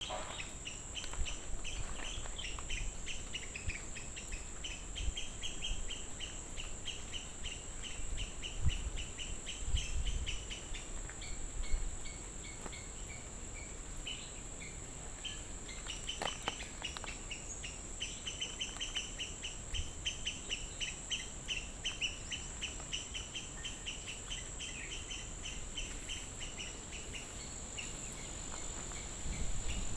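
Rural outdoor ambience: a steady high-pitched insect drone, with long runs of rapid, evenly repeated chirping calls from birds and insects. A few soft low thumps come about a third of the way in.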